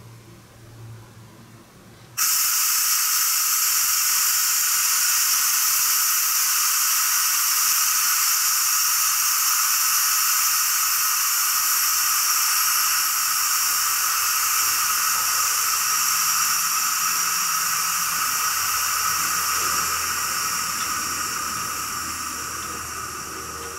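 Compressed air venting from the air system of a stopped EH200 electric freight locomotive and its tank-wagon train: a loud hiss that starts suddenly about two seconds in, holds steady, and slowly fades near the end. A faint low hum comes in partway through.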